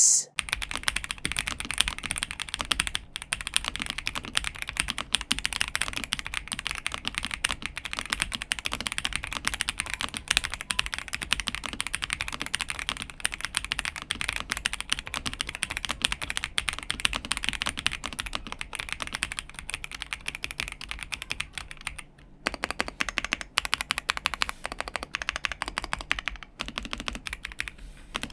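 Fast continuous typing on a MelGeek Modern 97 gasket-mounted mechanical keyboard with Kailh Sonic 53 linear switches and ABS keycaps, a rapid stream of key clacks with a short pause about two-thirds of the way through.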